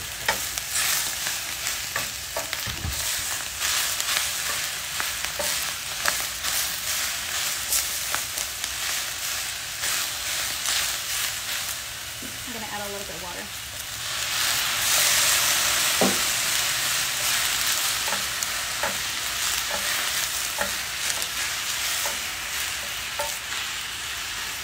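Snow pea leaves stir-frying with garlic in hot canola oil in a metal pan: a steady sizzle with the clicks and scrapes of a wooden spatula stirring. The sizzle swells louder about 14 seconds in.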